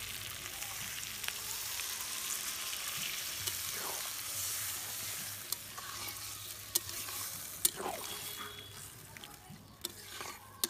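Water poured into a hot metal kadai of fried duck and potato masala, sizzling and hissing as it hits the pan while a spatula stirs it, with a few clicks of the spatula on the pan. The sizzle dies down near the end as the water settles into gravy.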